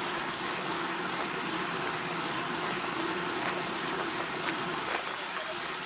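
Steady road and wind noise of a vehicle under way, with a faint low hum and a few light ticks.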